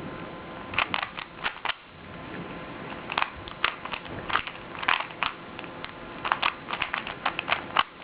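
Rubik's Cube layers being turned rapidly by hand, plastic clicking and clacking in quick irregular runs of several turns, with a brief pause about two seconds in. The cube is unlubricated: its owner says it needs oiling.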